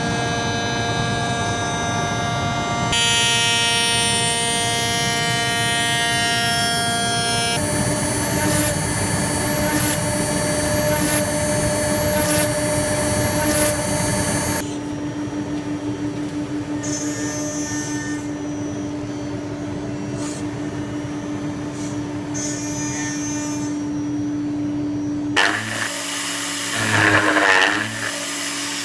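Home-made CNC mill's multicopter-motor spindle running with a steady high whine while a small end mill cuts metal plate, with a hiss of cutting under it. Near the end it changes to uneven, rising and falling whirring.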